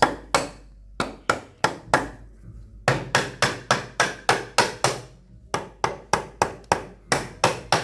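Claw hammer driving nails into a pine stud and nogging of a timber frame: sharp wooden knocks at about three blows a second, in runs broken by two short pauses.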